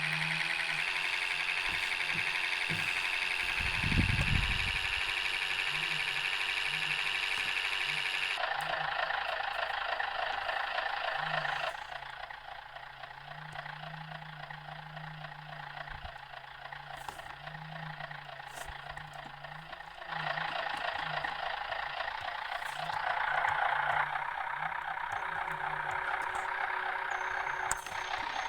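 MAZ-105 articulated city bus heard from inside the cabin: its diesel engine and road noise while driving, with a low thump about four seconds in. The noise drops to a quieter idle for several seconds in the middle, then rises again as the bus pulls away.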